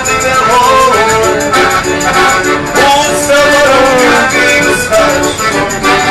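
Piano accordion played live, a melody over changing chords with a steady rhythmic pulse.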